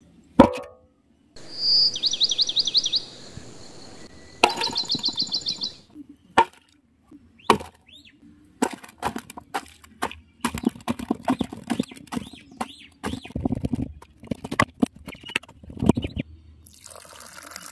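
A bird chirps in two short trilled runs, then a hammer strikes lumps of dry red clay over and over, crushing them to powder. Near the end, water starts pouring onto the clay.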